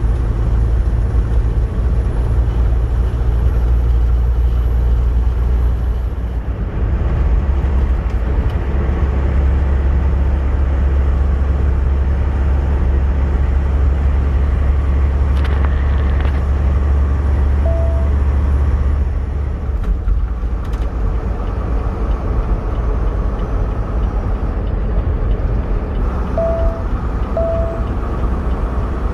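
Steady low rumble of a semi truck's engine and road noise, as heard inside the cab while driving. Short beeps sound once about two-thirds of the way through and twice near the end.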